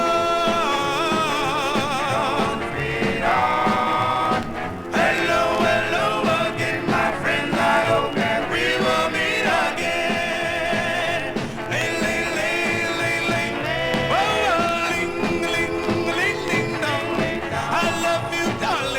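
1956 doo-wop vocal group record playing from a 45 rpm single: voices singing in harmony over instrumental backing, with some long notes held with vibrato.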